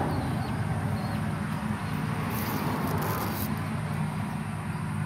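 Steady low engine-like hum, with a short high scraping hiss a little over two seconds in.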